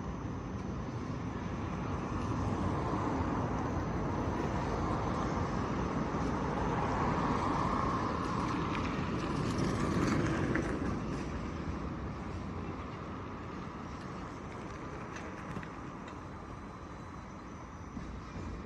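Heavy construction machinery running, a steady engine and mechanical din that grows to its loudest about ten seconds in and then eases off.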